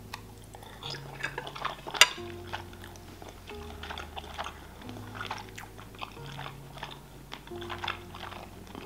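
Close-miked chewing of a mouthful of boiled pelmeni dumpling, with soft wet mouth clicks and one sharper smack about two seconds in, over quiet background music with a slow bass line.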